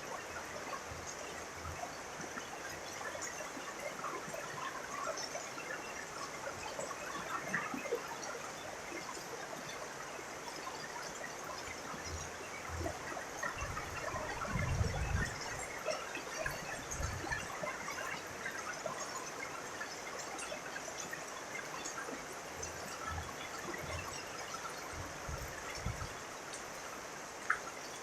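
Steady rain falling, with many small drop ticks close by. A few short low rumbles come and go around the middle and again near the end.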